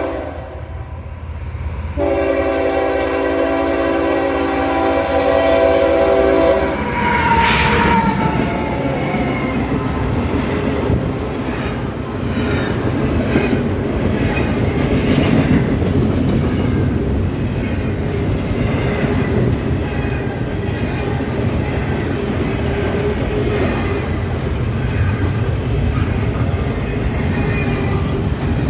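CSX freight locomotive horn sounding a long multi-note blast from about two seconds in until nearly seven seconds. The intermodal train then passes, its engines rumbling and its cars' wheels clattering over the rail joints in a steady clickety-clack.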